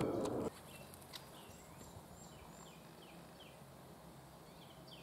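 A songbird sings faintly: a run of short, falling whistled notes repeated two or three times a second. A louder noise cuts off about half a second in.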